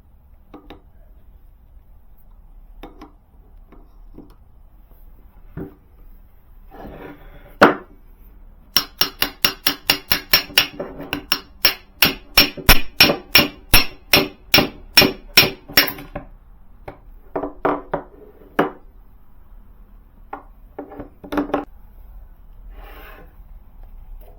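Hammer tapping on metal: a quick run of about four ringing strikes a second, lasting some seven seconds in the middle, with scattered knocks and tool handling before and after.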